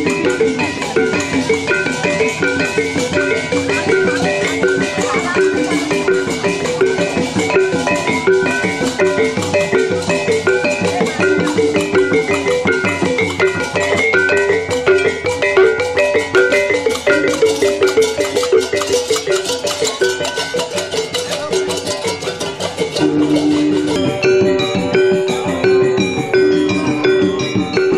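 Balinese gamelan ensemble playing: fast repeating patterns of bronze metallophone and gong-chime notes over drumming, with a thick metallic clatter in the middle. The music changes abruptly about 24 seconds in.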